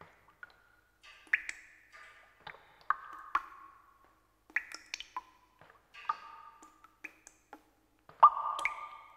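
Sparse, irregular clicks and short ringing pings, about a dozen, each dying away quickly, with a louder cluster near the end.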